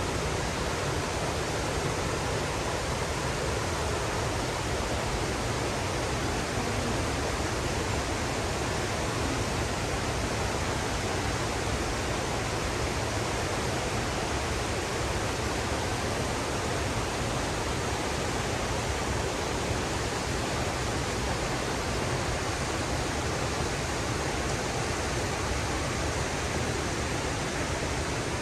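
Steady rushing water of a mountain stream running over rapids and falls, an even, unbroken roar.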